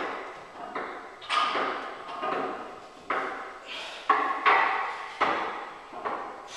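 Loaded barbell repeatedly touching down on wooden boards held on a bench-presser's chest during close-grip board presses: a series of sharp knocks and clanks, one every half second to a second, each ringing briefly.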